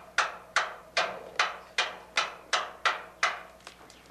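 A run of ten sharp knocks in an even rhythm, a little under three a second, each ringing briefly. The knocking stops shortly before the end.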